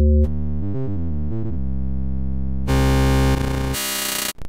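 Synthesized wavetable-oscillator tone from a Max/MSP cycle~ reading a 1024-sample buffer, holding one note while the wavetable's waveform is switched: the tone changes colour several times, flickering about a second in, turns much brighter and buzzier about three seconds in, and ends as a harsh buzzing tone with the table filled with noise, cutting off suddenly near the end.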